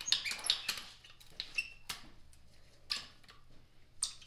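Manual dual-cartridge dispensing gun being squeezed to extrude two-part epoxy paste. The trigger and plunger rod click and clatter in a quick run in the first second, then click singly about once a second.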